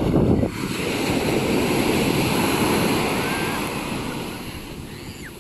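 Sea surf washing up a sandy beach: a steady rush of breaking waves that fades off over the last couple of seconds.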